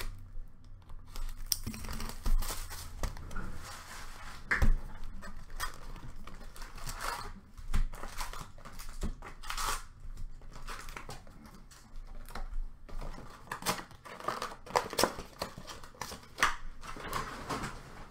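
A cardboard box of Upper Deck Series 2 hockey cards being torn open and its foil card packs handled: tearing and crinkling in irregular bursts, with sharp knocks as the packs are set down.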